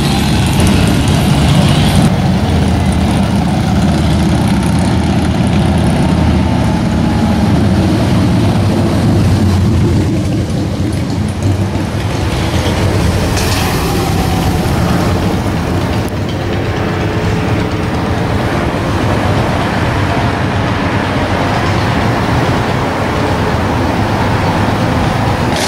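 Cruiser and touring motorcycles riding past on a city street among car traffic, their engines running loud and steady.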